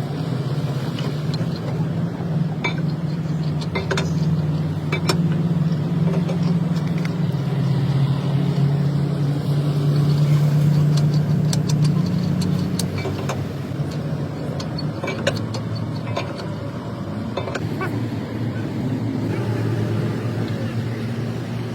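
Steady low engine hum, its pitch drifting slightly, with scattered short clicks and knocks.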